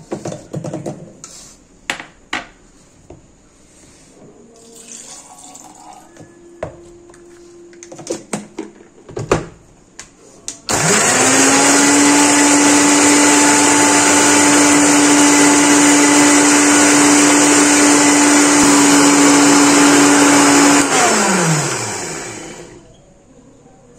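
Electric countertop blender grinding shallots and garlic. Several clicks and knocks as the jar is loaded and set on the base, then about ten seconds in the motor starts, rises quickly to a loud, steady pitch, runs for about ten seconds and winds down with falling pitch as it is switched off.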